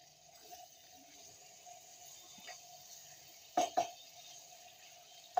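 Spatula stirring chicken pieces through thick masala gravy in a steel kadhai, with two sharp knocks of the spatula against the pan about three and a half seconds in and another near the end, over a faint steady hum.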